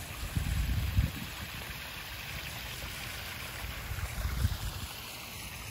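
Small garden waterfall splashing over rocks into a backyard koi pond, a steady rushing trickle. Two brief low rumbles, about half a second in and about four seconds in.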